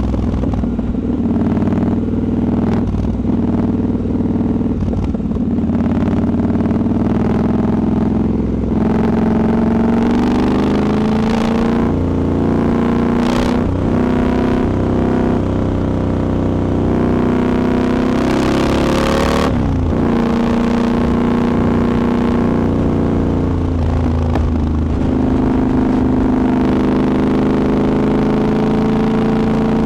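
Triumph Scrambler 1200 XE's 1200 cc parallel-twin engine pulling under load on the road. Its pitch climbs steadily and drops sharply twice, about 13 and 19 seconds in, as the rider changes gear.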